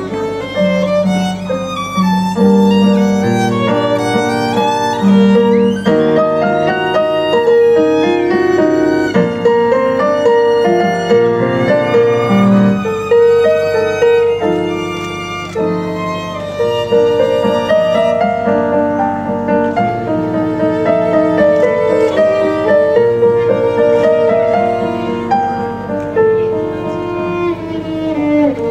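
Violin and piano duet: a bowed violin melody of held notes played over grand piano accompaniment.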